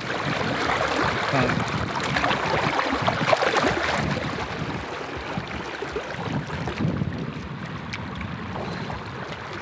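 Shallow river water splashing and rushing around a wader's legs as a rainbow trout is released and swims off, louder in the first few seconds and then settling to a steadier flow.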